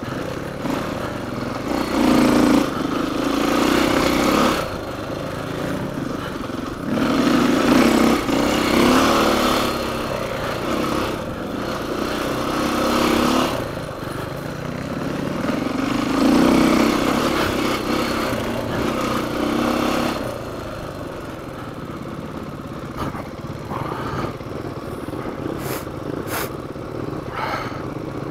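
Off-road dirt bike engine under way on a trail, swelling and easing again and again as the throttle is opened and closed. From about two-thirds of the way through it runs quieter and steadier as the bike slows and comes to a stop, with a few sharp clicks near the end.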